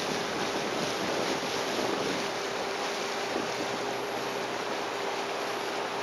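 Boston Whaler Montauk under way: its outboard motor running steadily with a constant hum, under a steady rush of wind on the microphone and water along the hull.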